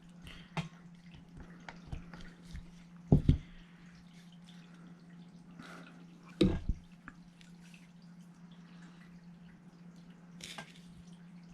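Small clicks and taps of airsoft rifle parts being handled while the stock's hinge pin is seated, with two louder knocks about three and six and a half seconds in, over a faint steady low hum.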